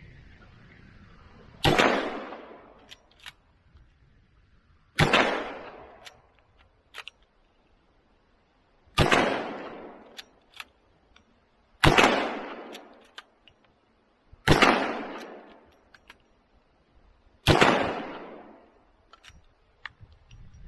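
Lever-action rifle firing six shots a few seconds apart, each trailing off in an echo, with small metallic clicks of the lever being worked between shots.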